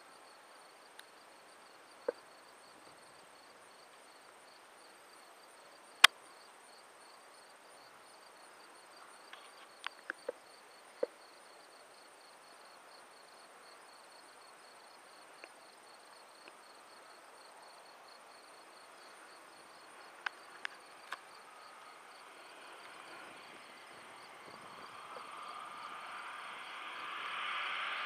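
Insects chirping steadily in a high, even pulse, broken by a few sharp clicks, the loudest about six seconds in. Over the last several seconds the engine of an approaching crop-dusting biplane grows steadily louder.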